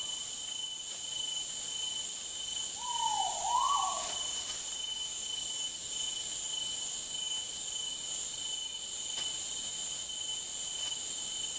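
Rainforest insect chorus: a steady high-pitched hiss with a constant shrill tone running under it. About three seconds in, a bird gives one wavering call of about a second that rises and falls twice.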